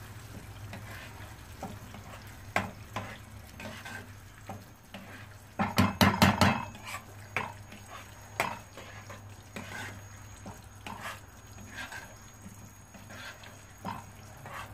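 A spoon stirring a thick semolina, sugar and food-colour mixture for rava kesari in a metal pan, scraping and knocking against the pan. About six seconds in comes a quick run of loud knocks against the pan. A steady low hum runs underneath.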